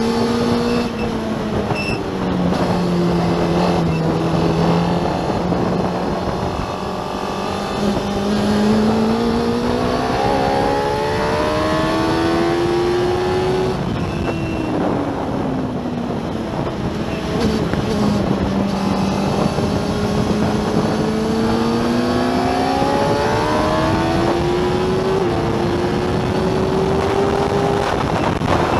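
Racing sidecar outfit's engine heard from on board at full race pace: it revs up as it accelerates, steps down at gear changes, and falls sharply in pitch under braking about halfway through before climbing again. A constant rush of wind and road noise runs underneath.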